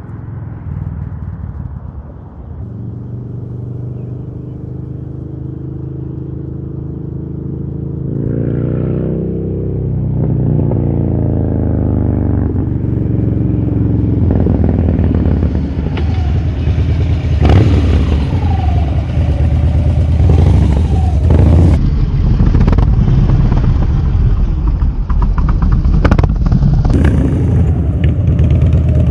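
Harley-Davidson Dyna Street Bob's V-twin running through a FAB28 aftermarket exhaust, idling and then taking off, getting louder as it accelerates. The pitch rises and drops several times as it goes up through the gears.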